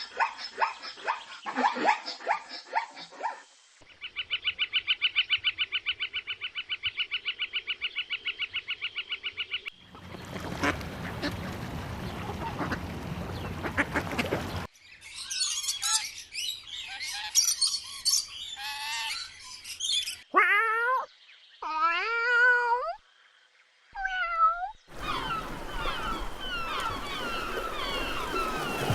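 A string of different animal and bird calls, cut one after another: rapid repeated calls, a fast rhythmic chatter, a noisy stretch, high chattering and several gliding calls.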